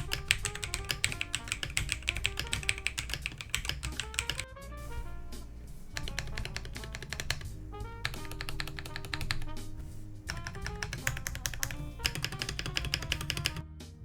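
Fast typing on a TKL mechanical keyboard with Akko V3 Creamy Blue Pro tactile switches and DSA Milkshake keycaps. A dense run of key clicks fills the first few seconds, then the typing goes on in bursts with short pauses. Background music with a bass line plays underneath.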